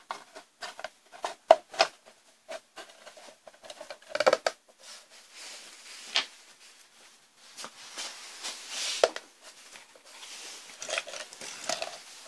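Treadmill motor inverter's cover being pressed down and fitted onto its chassis: a quick run of clicks and knocks, then scraping and rustling as the unit is handled on the workbench.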